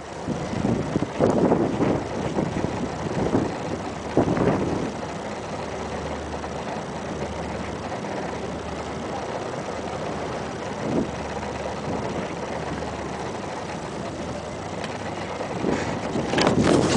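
Strong sandstorm wind buffeting the microphone: gusts in the first few seconds, easing to a steadier rush, then gusting hard again near the end.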